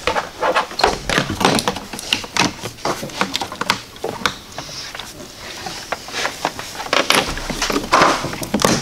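Irregular clicks and knocks of a car's windshield wiper arm and plastic cowl trim being handled and set in place by hand.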